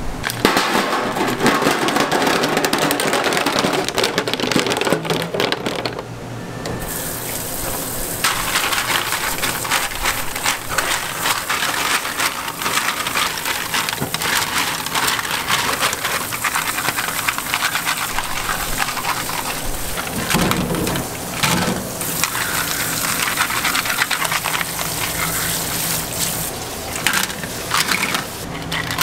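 Scallop shells clattering against each other and the stainless steel sink as gloved hands rinse and stir them. Tap water starts running over them about seven seconds in and keeps up a steady hiss.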